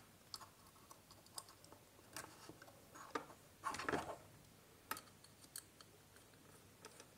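Faint, scattered small clicks and light scrapes from handling a small plastic wiring fitting: a wire being fed into its brass screw terminal and a screwdriver worked on the terminal screw. The clicks are a little louder around four and five seconds in.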